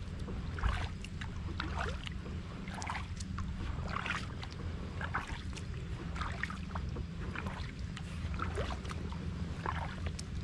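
Kayak paddle strokes splashing and dripping in calm water, roughly one stroke a second, over a low steady rumble.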